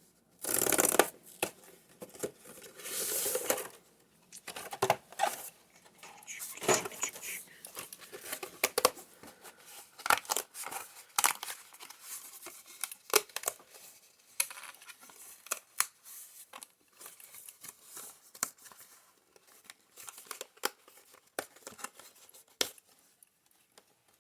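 Plastic wrapping being torn off a Magic: The Gathering Commander deck box, with two loud tearing rips in the first few seconds, followed by crinkling and scattered clicks and rustles as the packaging is handled and opened.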